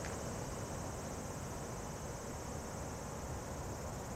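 Steady outdoor background with a low, even rumble and a continuous high-pitched insect trill over it.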